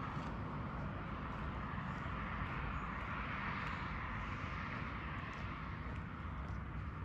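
Street ambience: a vehicle passing on the road, its noise swelling and fading in the middle, over a steady low rumble.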